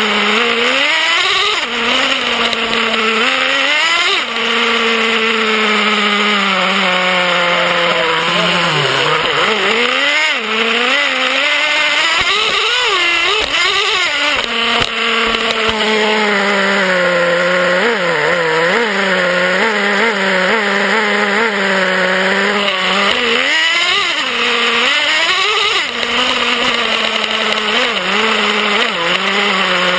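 Traxxas Revo RC truck's small nitro engine, heard close up from on board, revving up and down continuously as the truck is driven. Its pitch drops low briefly about nine seconds in, then climbs again.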